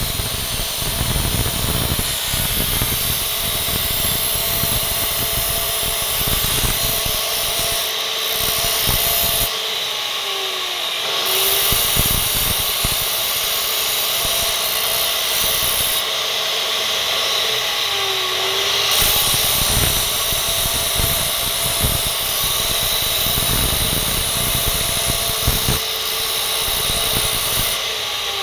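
Makita abrasive cut-off saw running, a flat steel piece held by hand against the spinning wheel and grinding steadily. The high grinding hiss eases off twice as the contact lightens, then comes back.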